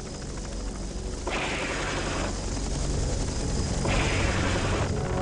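UH-1 Huey gunship's steady low rotor and engine drone, broken twice by roughly one-second bursts of weapon fire, about a second in and again near four seconds.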